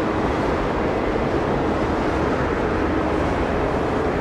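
Jet airliner engine noise: a steady rushing sound with a faint hum under it.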